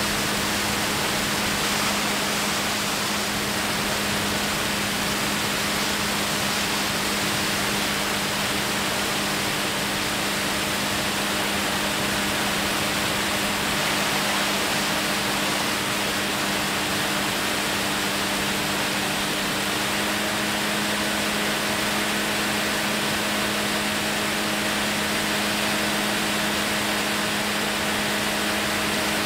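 Light aircraft's engine and propeller running steadily in cruise, a constant hum under a loud, even rush of air.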